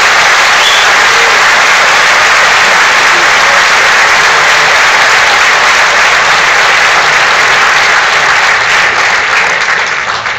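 Large audience applauding, loud and sustained, fading out near the end.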